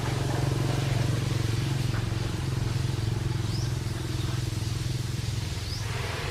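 A motor running steadily with a low hum. A few short, high, rising chirps sound faintly over it.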